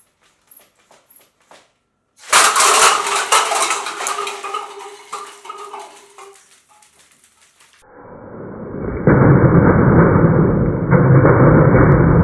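A few faint clicks, then about two seconds in a sudden clatter as a burst of 6 mm BBs from a cardboard airsoft gun hits a stack of plastic cups and the cups tumble and rattle, dying away over about five seconds. From about eight seconds on, loud muffled music with a heavy beat takes over.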